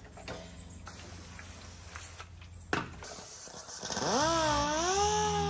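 Air-powered dual-action sander with a 3000-grit pad starting up about four seconds in: a whine that rises in pitch, wavers, then holds steady as it begins wet-sanding damp paint. A single sharp click comes a little before it starts.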